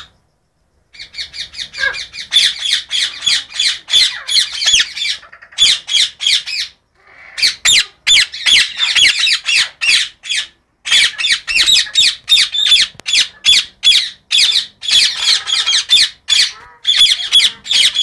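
Indian ringneck parakeets making loud, harsh, rapidly repeated squawks, several a second, in long runs broken by short pauses.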